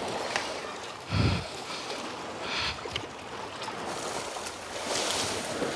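Sea water sloshing and surging against shore rocks, with a short, low thump about a second in.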